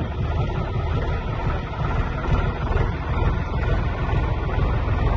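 Tractor engine running steadily at low speed, a continuous low rumble, as the tractor moves through floodwater.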